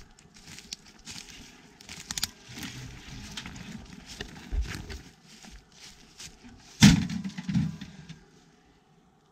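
Irregular cracking and rustling of twigs and dry woodland debris being trodden on and handled, with a heavy thud about seven seconds in and a smaller one just after, then quiet near the end.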